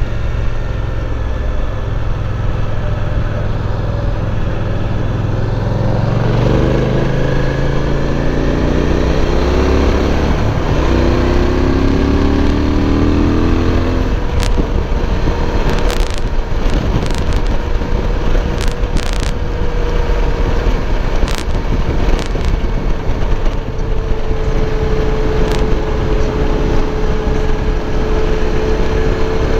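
Suzuki V-Strom 1050's V-twin engine under way, pulling up through two gears in two rising sweeps, then holding a steady cruising drone. Wind noise rushes on the microphone throughout, with a few sharp clicks in the middle.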